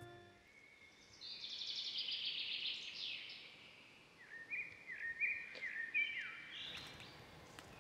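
Birdsong: a fast high trill for about two seconds, then a run of short chirps that bend in pitch in the second half.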